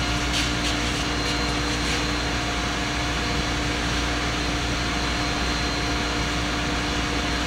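Steady, even mechanical drone of foundry equipment running, with a few held hum tones under it; a few faint ticks in the first two seconds.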